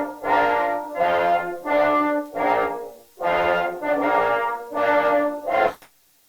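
Brass music: a brass ensemble playing held chords in short phrases, which stops abruptly near the end.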